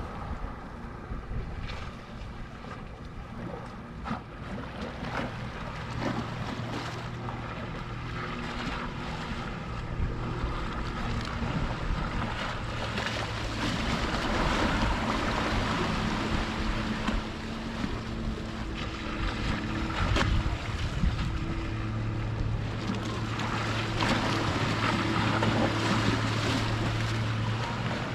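Sea water washing with wind on the microphone, under the low steady hum of a boat engine that grows louder in the second half.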